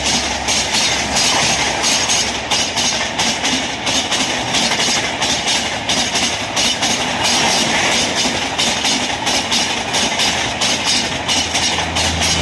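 Passenger coaches of an express train passing close at high speed: a loud, steady rush and rattle of wheels on the rails, with rapid clicks as the wheels cross rail joints.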